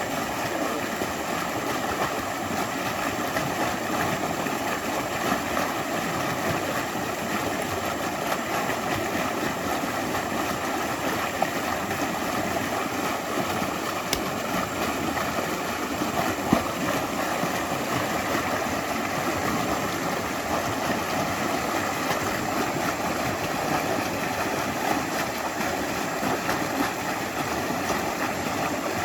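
A flowing stream: a steady, even rush and babble of running water, with one brief click just past halfway.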